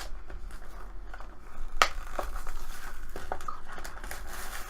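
A toy blind-bag pack being torn and handled open: crinkling packaging with a few sharp small clicks, the loudest about two seconds in.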